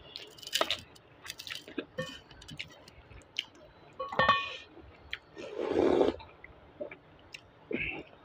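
Close-up chewing and mouth sounds of a person eating rice with chutney by hand, with small clicks of fingers against a steel plate. About four seconds in comes a short ringing clink, and around six seconds a longer, louder noise.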